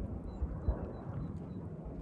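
F-35A fighter's single Pratt & Whitney F135 afterburning turbofan heard as a low, uneven jet rumble, swelling a little about halfway through.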